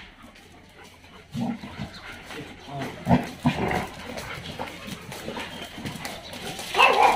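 A pack of dogs playfighting, giving short growls and yelps now and then, with the loudest yelp near the end.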